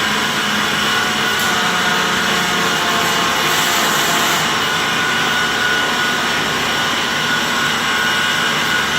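Loud, steady machinery noise with a hiss, running without a break.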